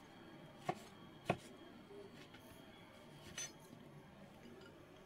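A large cleaver-style knife slicing through tomatoes and knocking on a wooden cutting board. There are two sharp knocks about half a second apart, and a softer one about two seconds later.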